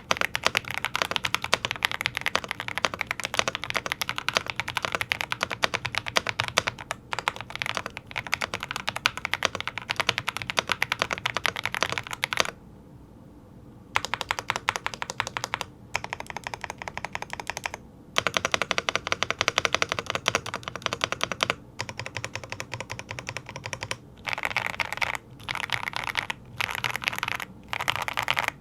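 Attack Shark X98 Pro mechanical keyboard being typed on quickly in a typing test, a dense run of key clicks. The typing stops for about a second and a half near the middle and breaks off briefly a few more times toward the end.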